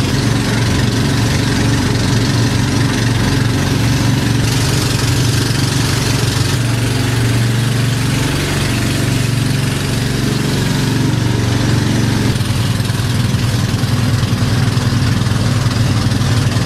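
Outrigger bangka boat's engine running steadily with a low hum, over a constant hiss of wind and water.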